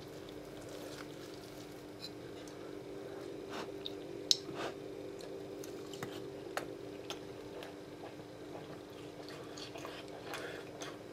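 A meal being eaten from a plate: scattered light clicks and taps of cutlery or fingers on the plate, the sharpest about four seconds in, over a steady low hum.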